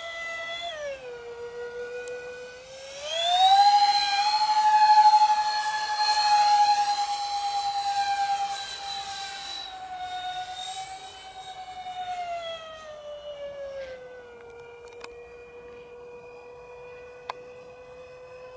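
Electric ducted fan of a radio-controlled Su-35 model jet whining in flight. The pitch jumps up sharply about three seconds in as the throttle opens, holds high, then slides slowly down over about ten seconds to a steadier, lower whine as power is cut back. Two faint clicks come near the end.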